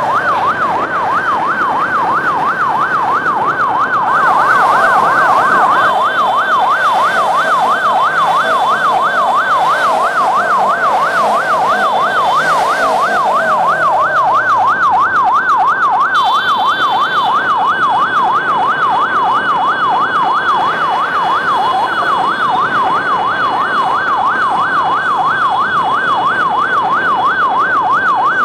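Electronic siren on a fast yelp, its pitch sweeping rapidly up and down without a break, over the noise of a motorcycle convoy. Steady higher tones join in from time to time.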